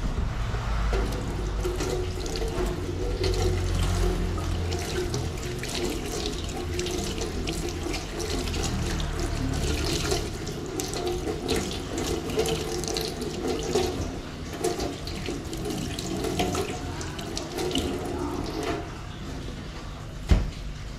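Water running from a tap into a sink, with scattered clinks and knocks of things being handled in the water. The flow stops about two seconds before the end, followed by a single sharp knock.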